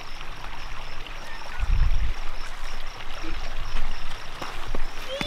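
Shallow creek water running and trickling over rocks in a steady hiss, with a brief low thump about two seconds in.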